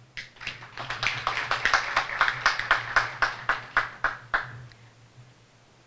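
Audience applause, a crowd of hand claps that builds quickly and dies away about four and a half seconds in.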